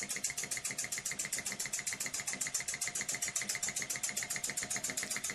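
Ind-X electrically heated toy steam engine running steadily, its single cylinder giving off a rapid, even chuffing of exhaust puffs as the flywheel spins.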